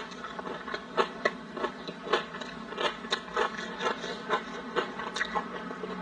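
Plastic-gloved hands and crisp lettuce leaves crinkling and crackling as a large glazed slab of meat is lifted and handled, in irregular clicks two or three a second.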